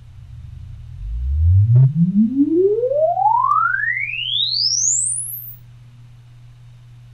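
Loudspeaker driven by a tube amplifier playing a sine-sweep test chirp for a frequency-response measurement. The tone rises smoothly from deep bass to a very high pitch over about four and a half seconds, with fainter overtones, and stops near the end. A steady low hum sits underneath.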